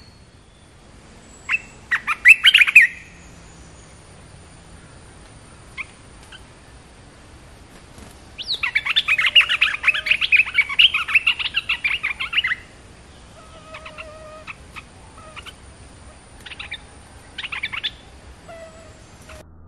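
Olive-winged bulbuls calling: a short burst of bubbly chirps, then a long, loud, fast chattering song phrase about halfway through, followed by a few softer scattered calls. A thin, steady, high-pitched tone sits underneath.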